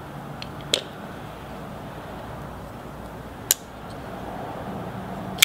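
Sharp, isolated metal clicks as a small folding knife and a bit screwdriver are handled after the pivot screw is tightened: four clicks, the loudest at the very end, over a steady background hiss.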